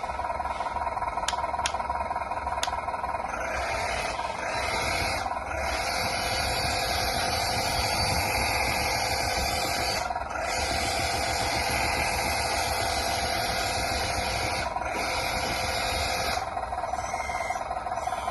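Metal 1/14-scale RC hydraulic bulldozer running: a steady whine from its hydraulic pump under a hissing, rattling mechanical noise. A few sharp clicks in the first seconds, and the sound dips briefly several times.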